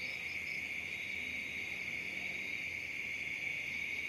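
A continuous, steady, high-pitched trill from an unseen night animal. Locals say it is a rarely heard owl, though it is as much like an insect's trill.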